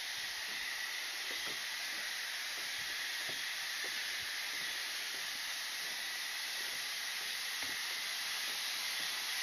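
Water rushing, a steady hiss.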